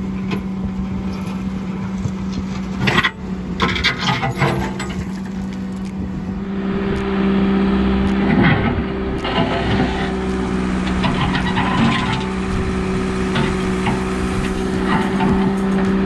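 John Deere 310D backhoe's diesel engine running at a steady speed while the bucket scrapes and knocks against concrete steps and gravel.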